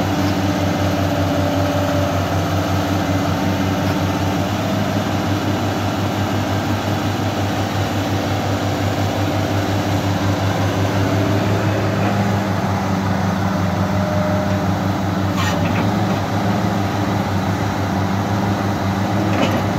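Caterpillar 318CL crawler excavator's diesel engine running steadily as the machine digs, with a faint whine now and then and two sharp knocks in the second half.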